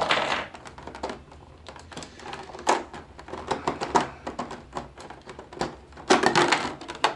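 Irregular crackling and clicking of a clear plastic blister-pack tray and small plastic toy parts being handled and cut free, with a denser burst of crackles about six seconds in.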